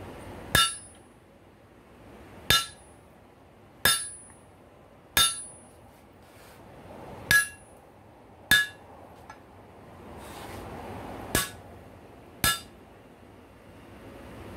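Hand hammer striking red-hot rail-spike steel on an anvil: eight single blows spaced one to two seconds apart, each a sharp metallic strike with a short ring.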